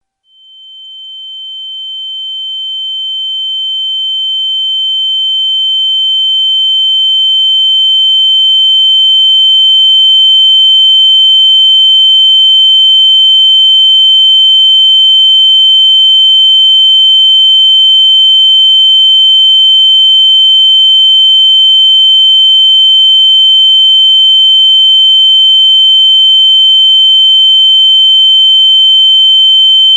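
Ear-ringing sound effect imitating tinnitus: a steady, pure high-pitched tone. It fades in from silence, growing louder over about the first ten seconds, then holds level, with a fainter lower tone beneath it.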